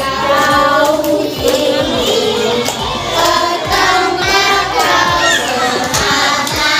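A group of young children singing together and clapping along.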